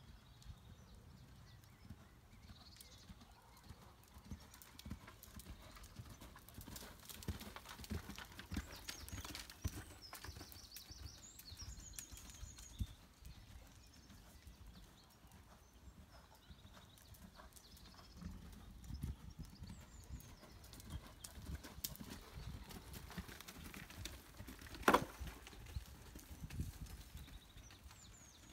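Faint hoofbeats of a ridden horse moving over a sand arena surface, a continuous stream of soft, uneven thuds. One sharper, louder sound stands out about 25 seconds in.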